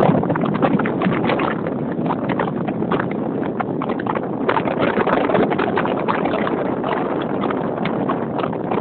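Ride noise picked up by a camera mounted on a road bike: a steady rush of wind and tyre-on-asphalt noise with a dense, irregular clatter of small clicks and rattles from the bike and mount.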